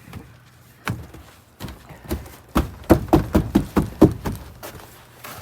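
Boots crunching and stamping in snow: a run of about a dozen quick, heavy steps, fastest near the middle at about four a second.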